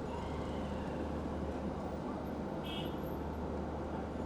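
Steady street traffic noise: an even wash of engines and road noise with a low hum.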